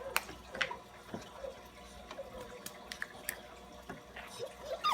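Plastic surprise eggs and toys being handled: scattered light clicks and taps, several in the first second or so and a few more later.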